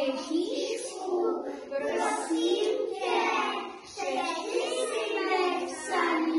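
A group of young children singing a song together, phrase by phrase, with a short break between lines near the middle.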